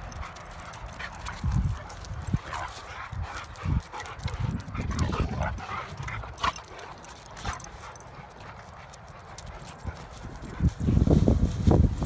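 Dogs, a young Rhodesian Ridgeback among them, playing together, with patter and scuffling of paws and brief dog vocalisations on and off. A loud low rumbling comes in near the end.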